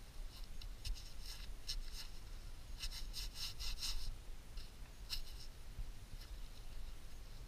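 Gloved fingers scraping and rubbing crumbly soil off a rusted iron fragment just dug from the ground, in short scratchy rasps that are busiest about three to four seconds in.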